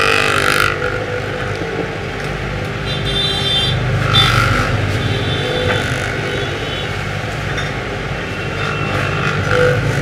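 Steady low rumble of road traffic, with a short high tone about three seconds in.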